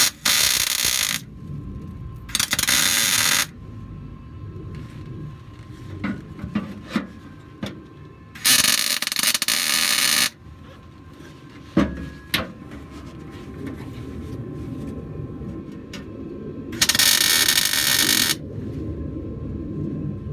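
Welder tack-welding sheet-metal trunk panels: four separate bursts of welding noise, each one to two seconds long, with scattered knocks and clicks between them.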